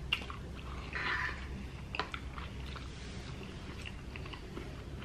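Close-miked chewing of a mouthful of soft loaded baked potato: wet mouth sounds with a few sharp clicks.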